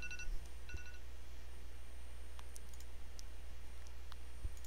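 A few faint, scattered clicks at a computer over a steady low electrical hum, with a faint short electronic beep twice within the first second.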